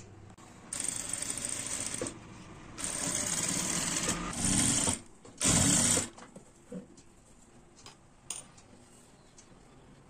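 JACK industrial sewing machine stitching through embroidered blouse fabric in three short runs, the last one the loudest. After about six seconds only a few faint ticks remain as the fabric is handled.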